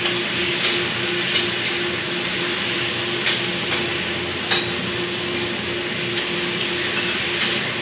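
Food sizzling as it is stir-fried in a pan, with a few sharp clinks of the spatula against the pan.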